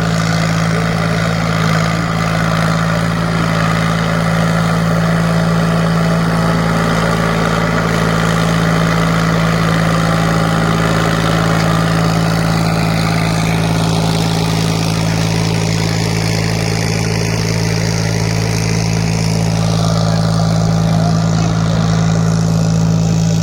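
Tractor diesel engine running at a steady speed: an even low drone with no change in pitch.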